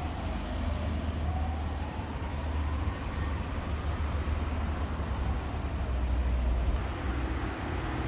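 Porsche 911 Turbo's turbocharged flat-six engine with a steady low rumble, and a faint whine rising gently over the first few seconds.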